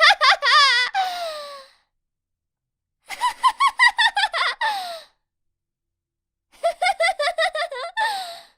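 A young woman's high-pitched, cute anime-style giggling, acted as a sound effect: three separate takes of quick "hehehe" pulses, each trailing off in a falling tone, with dead silence between them.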